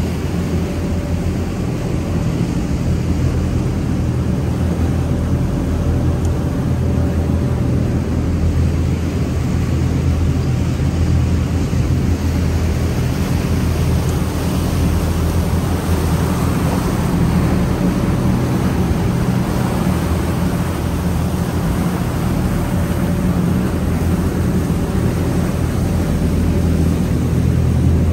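Steady low drone of a cruise yacht's engines underway, with a rushing wash of noise over it that swells somewhat in the middle.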